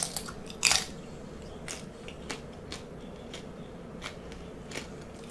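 Close-miked chewing of deep-fried salt and pepper shrimp. Two sharp crunches near the start, then softer crunches and mouth clicks every half second or so.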